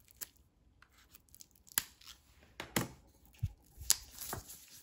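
Plastic shrink wrap being slit with a snap-off utility knife and torn off by hand: a handful of separate sharp, scratchy rips, with crinkling of the plastic near the end.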